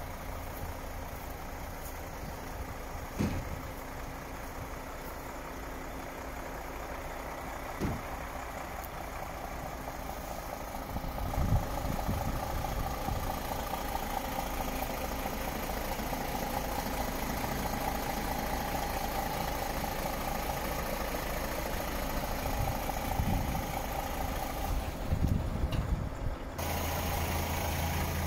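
DAF XF 480's PACCAR MX-13 six-cylinder diesel idling steadily, with a few short knocks. The hum grows stronger about 26 seconds in.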